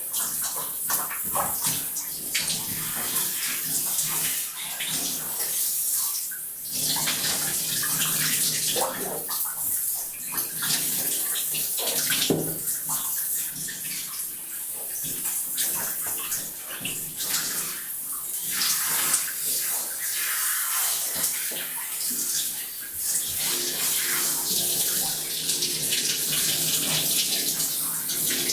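Shower water running into a bathtub, a continuous hissing spray with irregular splashing as it hits the tub and a body beneath it.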